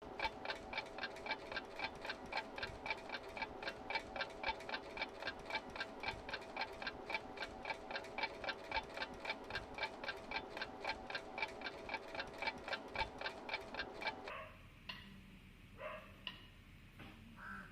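Fast, steady ticking, about three or four ticks a second, each tick with a slight ringing tone. It stops abruptly about fourteen seconds in, and a few faint short sounds follow.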